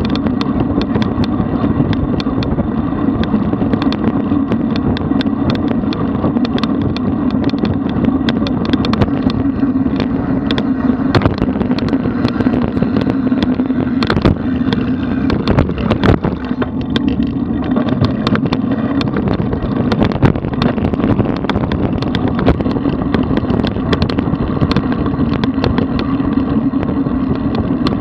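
Wind and road noise on a bicycle-mounted camera's microphone while riding at speed, a steady rumble with frequent small rattling clicks.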